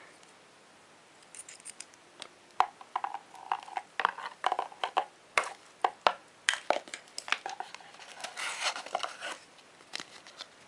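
Hands handling unboxing packaging and accessories: a run of sharp clicks and taps as items are picked up and set down, with clear plastic wrapping crinkling and a stretch of rustling near the end.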